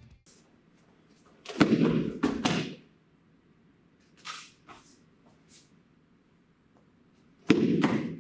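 A karate gi cracking and bare feet slapping the mat as a one-two punch is thrown: two quick bursts of sharp snaps and thuds, about six seconds apart, with faint fabric swishes in between.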